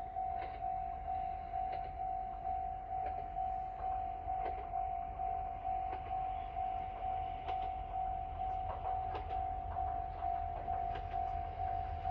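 Railway level-crossing warning bell ringing, a single electronic tone repeating about twice a second, over a low rumble as a KiHa E130 diesel railcar approaches.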